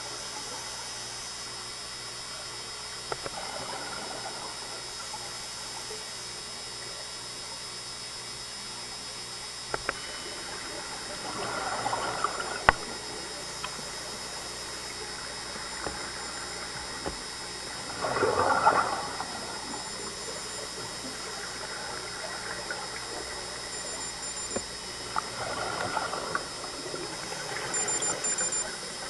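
Scuba regulator exhaust bubbles gurgling out in about four separate bursts, a diver's breathing, over a steady underwater hiss, with one sharp click about twelve seconds in.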